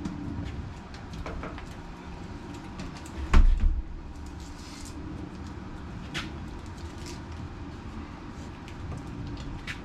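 Handling noise and sharp plastic clicks as a hinge light housing is pressed and clipped onto the Jeep's hardtop hinge. There is one loud thump about a third of the way in and a few clicks after it.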